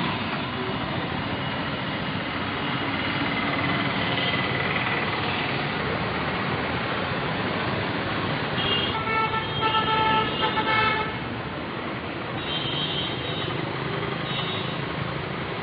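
Steady road traffic noise, with vehicle horns honking repeatedly about nine to eleven seconds in and a few fainter honks after.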